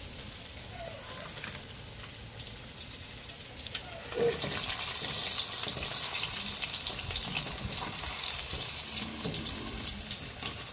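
Fish frying in hot oil, a steady sizzling crackle that gets louder about four seconds in, when there is a short knock.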